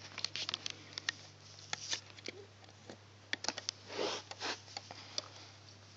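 Small irregular clicks and taps of fingers and a plastic hook working rubber bands over the pegs of a plastic loom, with a short soft puff, like a breath or sniff, about four seconds in.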